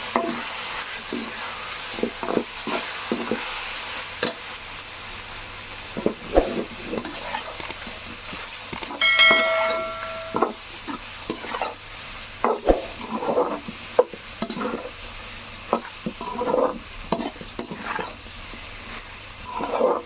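Chicken frying in oil in a kadai, sizzling steadily while being stirred with a spoon that scrapes and knocks against the pan. A brief ringing tone sounds about nine seconds in.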